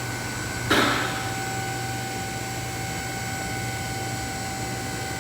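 Steady workshop hum with a few constant tones, broken by one short clatter just under a second in that dies away within about half a second.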